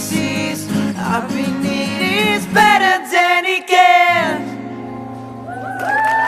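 Singing over acoustic guitar: a vocal run with quick pitch bends that ends about four seconds in, followed by steady held notes as the song closes.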